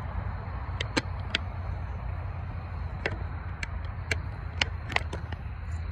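Steady low rumble of wind on a phone microphone, with a scattering of short, sharp clicks and taps from hands working an RC transmitter that the phone is held against.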